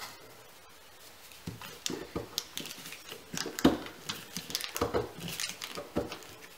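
A metal pick scraping and prying at the pressed clay plug inside a cardboard firework canister shell. It makes irregular scrapes and clicks, starting about a second and a half in.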